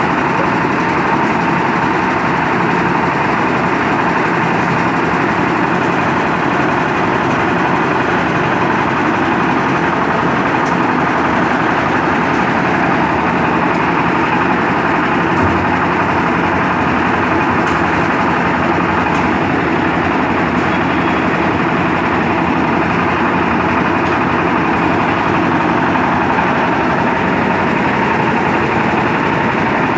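Concrete mixer's engine running steadily at a constant speed, with a steady hum near the middle of its sound.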